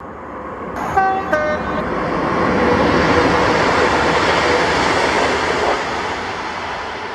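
Train horn giving two short blasts about a second in, then the rushing noise of the train passing, swelling over a few seconds and slowly fading.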